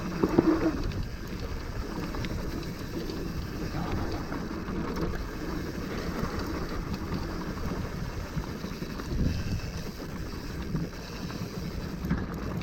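Wind buffeting a helmet chin-mounted camera's microphone while a downhill mountain bike rolls fast over a dry, rough dirt trail, its tyres crunching and the bike knocking and rattling over the bumps.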